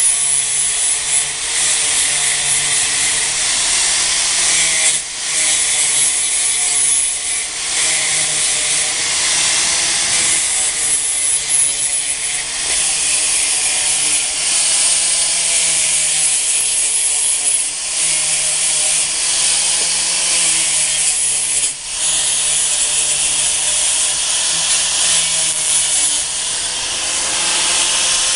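Handheld angle grinder running steadily, grinding flush the sharp screw tips that poke through the wooden frame boards. Its whine wavers slightly throughout, and the sound eases off briefly twice, about a fifth of the way in and again about three quarters through.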